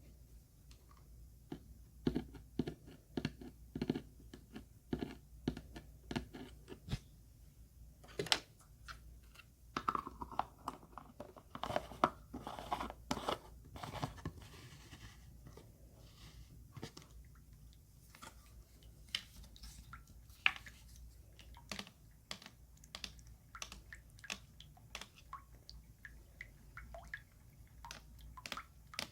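Close-miked ASMR trigger sounds: soft, irregular clicks and crackles, busiest near the middle.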